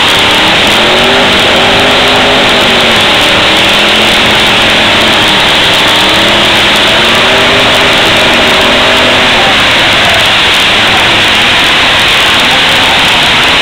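Several demolition derby car engines running and revving hard at once, their pitches rising and falling over one another in a dense, very loud roar that overloads the recording.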